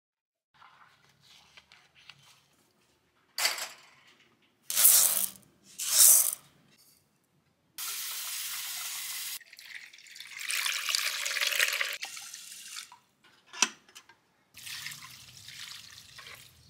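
Tap water running into an aluminium pot: a steady rush that cuts off suddenly, after three short, loud rushes of noise. Later, water poured from a plastic bowl splashes onto potted plants.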